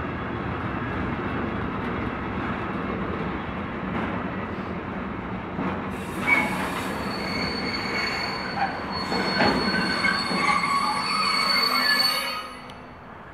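Freight train of container wagons rolling past at close range with a steady rumble and wheel noise; from about halfway, the wheels squeal on the rails with several high, steady tones that come and go. The sound drops away sharply near the end.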